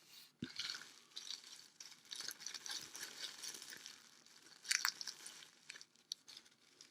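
Crinkly packaging rustling and crackling as it is handled and opened, with a louder crackle about five seconds in.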